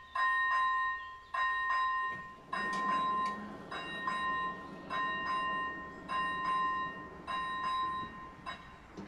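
Railway level-crossing warning bell ringing in pairs of strokes about once a second. From about two seconds in, a low hum from the barrier drives joins it as the red-and-white booms lower. The bell stops near the end, as the barriers come fully down.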